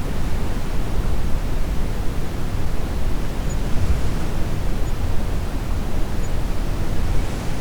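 Steady brown noise: an even, deep hiss weighted toward the low end, with no distinct rise and fall of waves.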